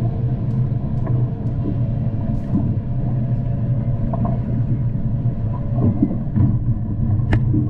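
Honda 225 V6 four-stroke outboard motor running steadily under way, a constant low rumble mixed with wind and water noise. There is a single short click near the end.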